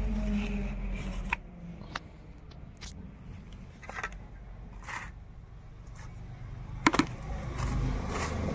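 A motor vehicle's engine rumble fading out in the first second or so, then scattered light clicks and taps, the sharpest a double click about seven seconds in, with low vehicle rumble coming back near the end.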